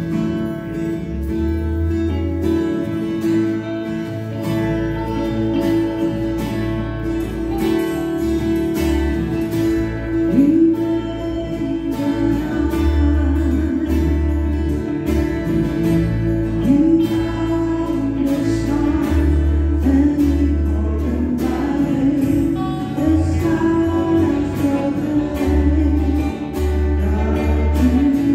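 Live church worship band playing a gospel song on piano and guitars over low bass notes, with voices singing into microphones from about a third of the way in.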